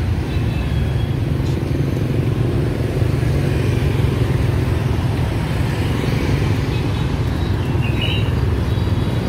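Street traffic, mostly motorbikes with a few cars passing on a city road: a steady low rumble of small engines and tyres.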